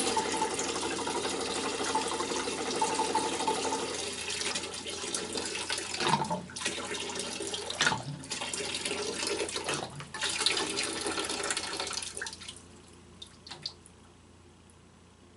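Water draining from a hot-water heating system's expansion tank through an open gate valve into a bucket, pouring steadily, then breaking into a few gulps around six, eight and ten seconds in as air is drawn into the tank through a straw. The flow stops about twelve seconds in, followed by a few faint taps.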